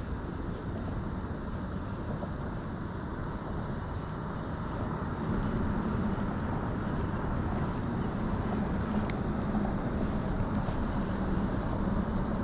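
Steady rushing of river water with wind on the microphone, growing a little louder about five seconds in.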